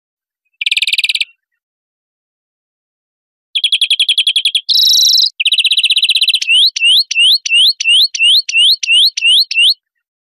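European greenfinch song: rapid trills, a single buzzy wheeze about five seconds in, then a run of about a dozen rising notes, roughly four a second.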